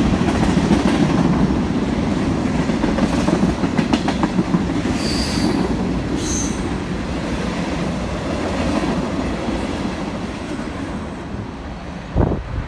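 Freight train's tank cars rolling along the rails, wheels clicking over the track with a steady rumble that slowly fades as the train moves away. Two short high squeals come about five and six seconds in, and a thump near the end.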